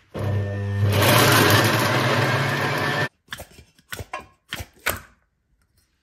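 Electric countertop blender running for about three seconds, grinding soaked pulses into a thick paste, then cutting off abruptly. Several short knocks follow as the plastic jar is tapped against a steel bowl to empty it.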